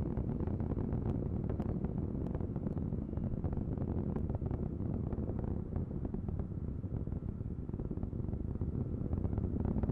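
Ares I-X's solid rocket motor heard from the ground in flight: a steady low rumble with scattered crackling.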